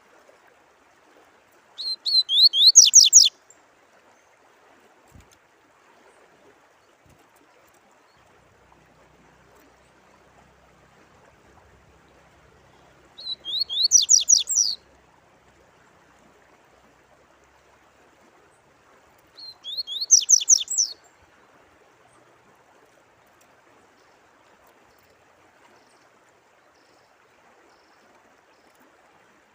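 A songbird singing three short phrases, each a quick run of high, sweeping notes lasting about a second and a half, with long gaps between them. A faint, steady trickle of running water goes on underneath.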